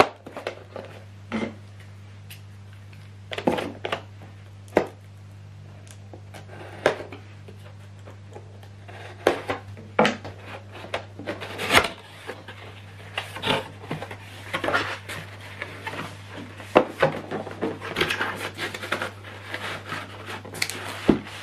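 A cardboard box being handled and opened: scattered knocks, scrapes and rubbing of the cardboard flaps and foam packing, over a steady low hum.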